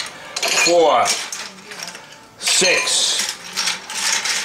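Hard clam shells clacking against each other and against a stainless steel pan as steamed clams are picked out by hand, a rapid irregular clatter of clicks in two busy spells, the second louder and starting about two and a half seconds in.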